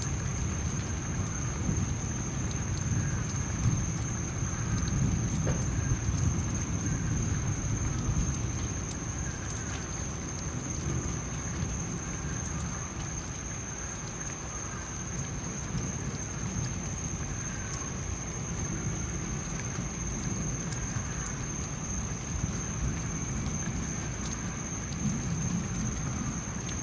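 Distant thunder rumbling low and almost continuously, heavier in the first several seconds and again near the end, over steady rain. A steady high-pitched whine runs throughout.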